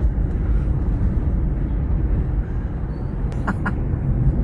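Mercedes-Benz W211 driving over a rough road: a steady low road and tyre rumble, with a few light clicks about three seconds in. The owner takes the knock for a brake pad loose in the right front caliper, moving in its seat over bumps.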